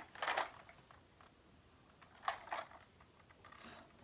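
Short rustling and scraping as a plastic foot spa and its packaging are handled: a burst near the start, two quick ones about two seconds in, and a fainter one near the end.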